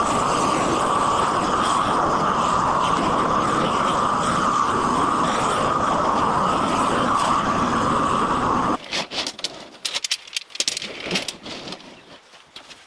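A power tool running steadily, stopping abruptly about nine seconds in, followed by scattered knocks and clicks.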